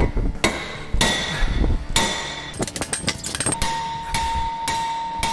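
Repeated steel hammer blows on a heat-seized tiller tine hub on a Wheel Horse rototiller gearbox shaft, roughly one or two a second with a quick run of strikes midway. Each blow rings out metallically.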